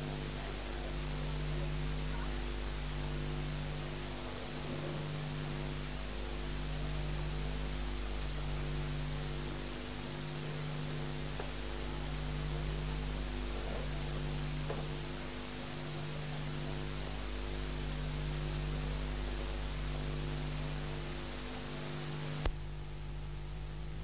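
Steady hiss and mains hum on an old analog videotape sound track, with no audible room sound. One low hum tone swells and fades about every second and a half. Near the end the hiss drops out abruptly with a click.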